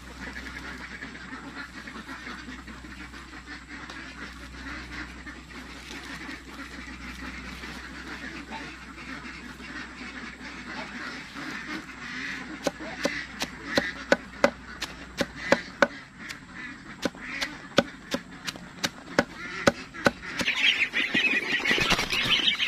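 Ducks calling in the background. From about halfway in, a large knife chops kangkong stems against a wooden plank in sharp strokes, roughly two a second. Near the end, ducklings peep loudly close by.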